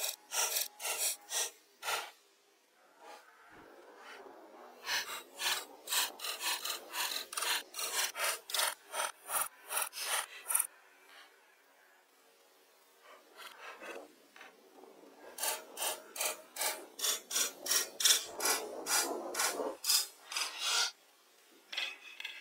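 Hand tool cutting into wooden poles in rhythmic strokes, about two to three a second, in three runs with short pauses between them.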